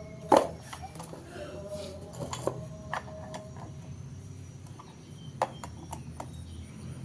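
A few sharp knocks and clicks, the loudest about a third of a second in, over a faint steady hum.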